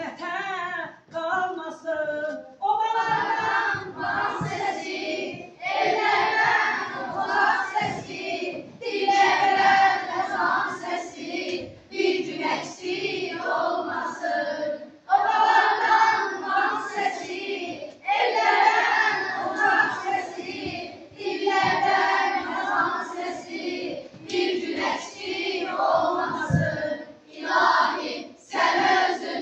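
A woman and a children's choir singing together, in phrases of a few seconds with short breaks between them.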